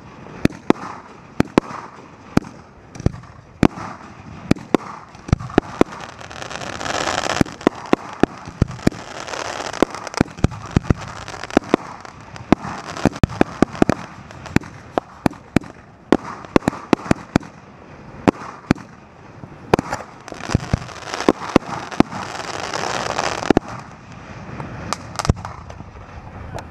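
A fireworks cake firing shot after shot: a rapid, uneven series of sharp launch thumps and bangs. Two stretches of dense hissing and crackling come about six to eight seconds in and again around twenty to twenty-three seconds in.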